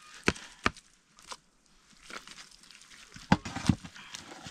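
A handful of sharp knocks or chopping strikes, irregularly spaced: two in the first second, then two louder ones a little past three seconds in, with fainter ticks between.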